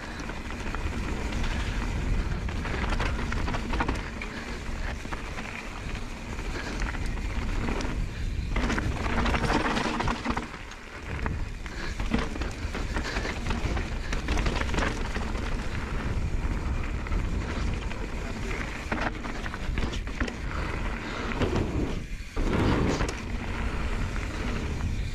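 Mountain bike riding fast down a loose slate-gravel trail: a steady rushing noise of tyres rolling over stones and wind on the microphone, with the bike rattling. The noise dips briefly about eleven seconds in and again about twenty-two seconds in.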